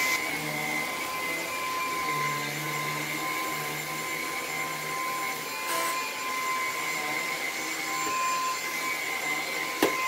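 Lupe Pure cordless stick vacuum running as it is pushed across carpet: a steady motor whine over the rush of airflow. A sharp click comes just before the end.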